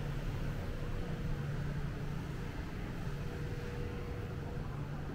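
Steady low hum and hiss of a Guangzhou Metro Line 22 train standing at an underground platform, with station ventilation. A faint whine fades out near the start and returns about three seconds in.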